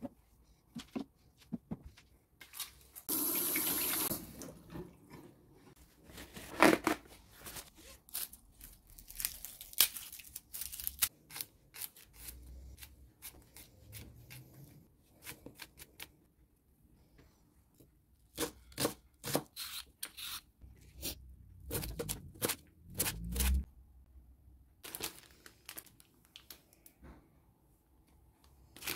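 A kitchen knife chopping garlic cloves on a plastic cutting board, making irregular runs of short sharp knocks. About three seconds in, a tap runs for roughly a second.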